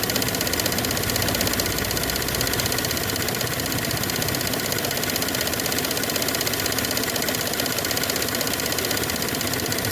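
Chevrolet Spin engine idling with a rapid, steady ticking that comes from a faulty canister purge (EVAP) valve knocking. It passes for valve-lifter or engine noise, and replacing the valve cures it.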